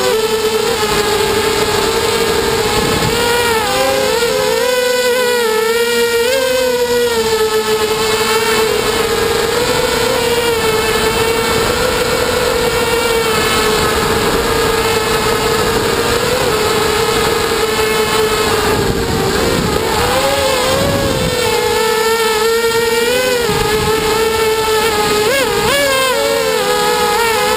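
QAV250 racing quadcopter's four brushless motors and propellers whining steadily, heard from a GoPro mounted on the drone, the pitch wavering up and down as the throttle changes through the laps. Low wind rumble on the microphone underneath.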